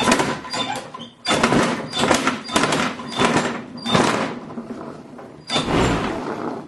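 A toy being shredded by a machine: loud, irregular crunching and grinding in repeated bursts, easing off about four seconds in, with one more burst near the end.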